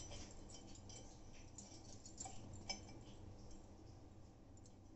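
Very faint light clicks and ticks, about half a dozen in the first three seconds, from hands handling rolled naan dough while wetting one side with water, over near silence.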